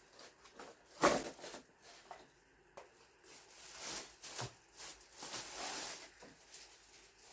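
Table fan parts being handled: a sharp knock about a second in, then scattered light clicks and rustling.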